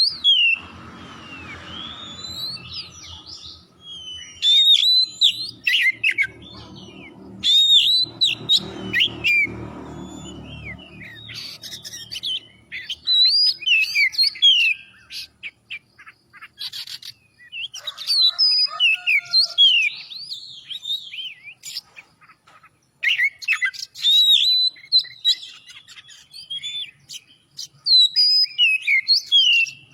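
Oriental magpie-robin singing in loud, varied whistled phrases that sweep up and down, delivered in bursts of a second or two with short pauses between them. A low rumble of background noise sits under the song for roughly the first half.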